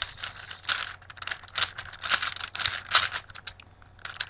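Rubik's cube being turned fast by hand, its plastic layers clicking and rattling in quick, irregular runs.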